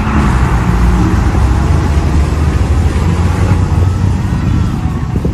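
Diesel engines of a Case IH Puma 125 and a Valmet 8000 tractor working hard under load as the two tractors pull against each other in a tug of war, giving a loud, low, steady drone with a hissy edge.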